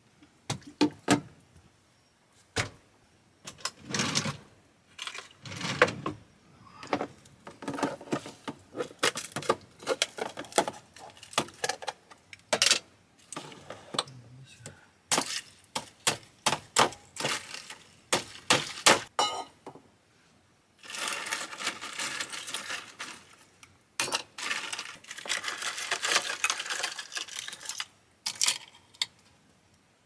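Clattering and clicking of small hard objects being handled, many separate sharp knocks, then two longer stretches of steady rushing noise near the end.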